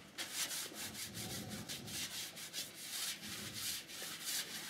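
Painting medium being rubbed over a stretched canvas in quick back-and-forth strokes, a dry rhythmic scrubbing hiss: the canvas is being oiled out before the next layer of paint.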